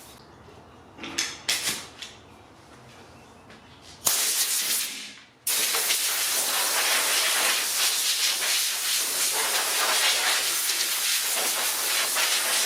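A few faint rubbing strokes, then a compressed-air paint spray gun hissing: a short burst about four seconds in, then a longer steady spray that cuts off at the end.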